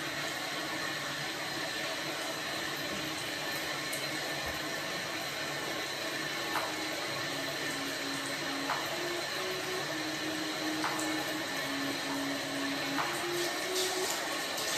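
A steady rushing noise throughout, with a soft run of low notes, like background music, entering about seven seconds in, and a few faint ticks about two seconds apart.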